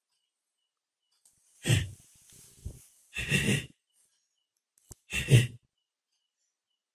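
A person's breathy huffing noises: three loud, short bursts about a second and a half apart, with a fainter one between the first two.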